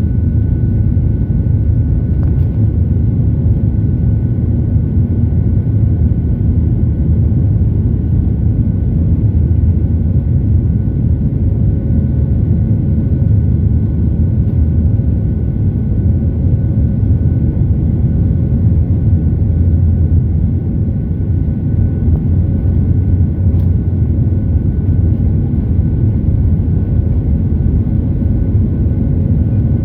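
Boeing 737-800's CFM56 jet engines and airflow during the takeoff climb: a steady low rumble with a faint steady whine above it.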